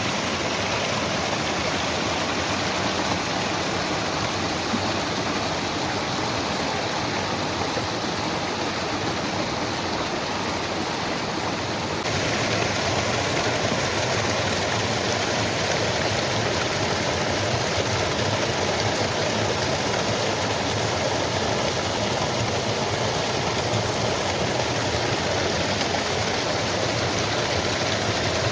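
Waterfall water falling and rushing in a steady, even roar of noise. About twelve seconds in the sound changes abruptly and grows slightly louder.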